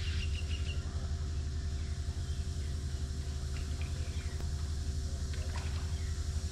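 A machine engine running steadily: a low rumble with a faint constant hum over it.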